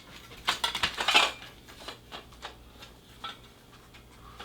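Metal crossbar sections of a backdrop stand clinking and rattling as they are handled, a cluster of clinks in the first second and a half, then a few scattered taps.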